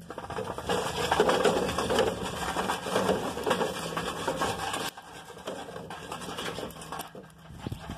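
Sheet-metal scraping and rattling as a charcoal grill's steel vent damper is slid and worked open to raise the heat, stopping suddenly about five seconds in, followed by quieter scattered knocks.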